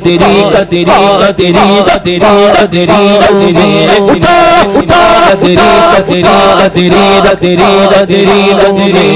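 Male voice singing a naat in a chant-like style, its pitch bending and wavering, over a steady low drone and a regular beat.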